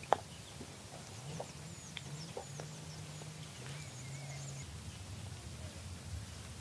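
A single sharp knock right at the start, then faint high bird chirps over a low drone that steps up and down in pitch, with a few soft ticks.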